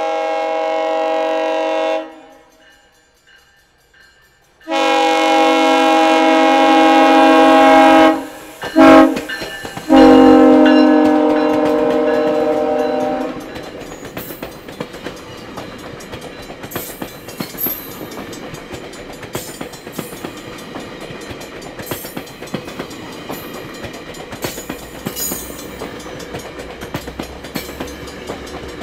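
GO Transit train's horn sounding the grade-crossing signal, two long blasts, a short and a long, the last ending about halfway through. Then the bilevel coaches roll over the crossing with a steady clatter of wheels on the rails.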